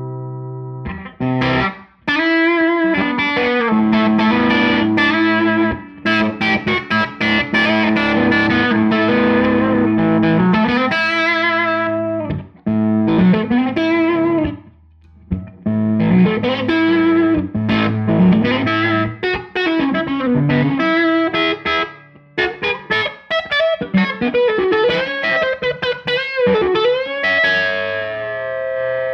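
Electric guitar played through a Tone King Gremlin tube amp on its rhythm channel, with overdrive. Chords and riffs are broken by brief stops, and bent single notes come near the end.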